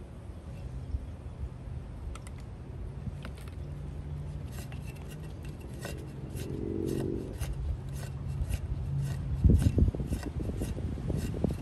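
Seized shaft of an antique Robbins & Meyers electric fan motor being turned back and forth by hand after oiling: a run of metallic clicks and scrapes about two to three a second from its stiff bearings, with a heavier low thump about nine seconds in. The stiffness is the sign of dry, possibly fried bearings that the oil is meant to free.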